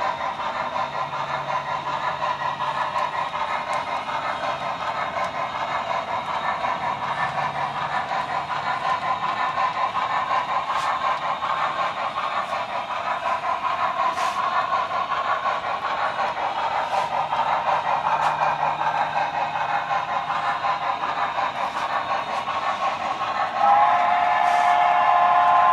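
Model steam locomotive running steadily, with a few light clicks, and a steam whistle starting about two seconds before the end and held on two steady notes.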